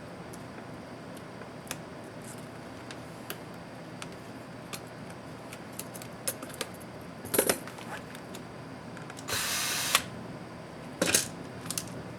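Small clicks and taps of laptop parts and tools being handled during disassembly, with two louder clattering scrapes and, between them, a short steady whirr lasting under a second.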